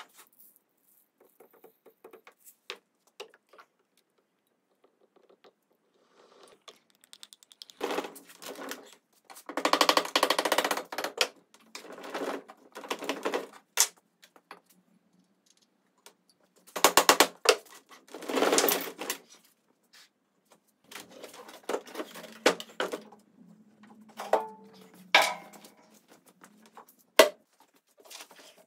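Hand work on a wooden antique piece at a workbench: scattered clicks and knocks, with several louder noisy bursts a second or two long.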